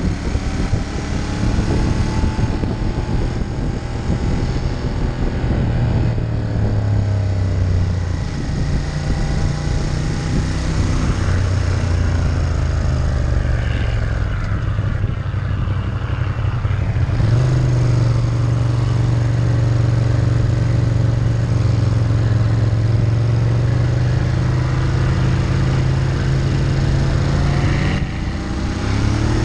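Ducati Monster 1200's L-twin engine running under way. Its note holds steady, drops in pitch about a quarter of the way in, steps back up a little past halfway, and dips then climbs again near the end as the rider works the throttle.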